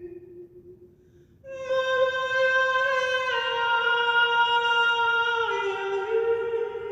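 A woman singing wordless long held notes without accompaniment. A note dies away in the first second, and after a short pause a new note begins about a second and a half in. The pitch then steps down twice.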